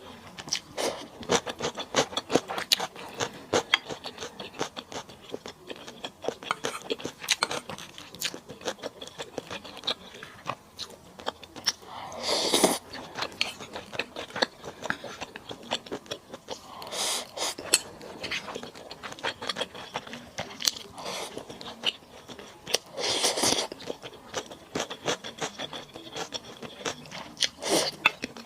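Close-miked eating sounds of a person chewing and biting stir-fried chicken: dense crunching and wet chewing clicks throughout, with four louder bursts of noise spaced about five seconds apart.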